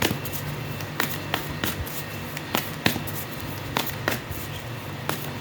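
Tarot cards being handled: a string of sharp, irregular clicks and slaps as the deck is shuffled and cards are set down.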